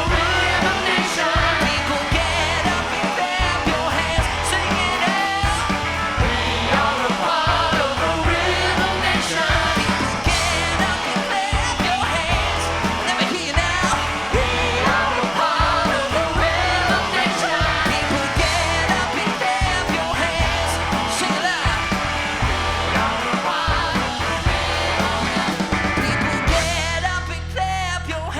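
Soul band playing live, with a full rhythm section and singing over it. About two seconds before the end, the busy full-band sound drops away, leaving held low notes.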